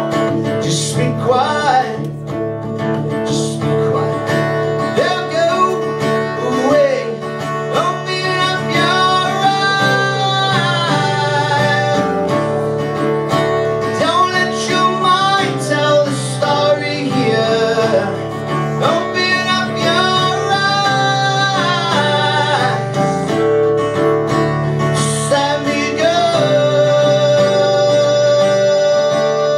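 Live acoustic song: a man singing to a strummed acoustic guitar, amplified through stage speakers. Near the end the music settles on a long held note.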